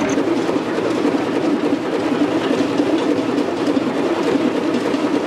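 Large three-cylinder hot-bulb engine running, a loud, steady mechanical clatter.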